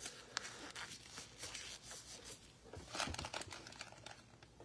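Faint rustling and crinkling of gloved hands handling foil trading-card packs, with a denser run of crinkles about three seconds in.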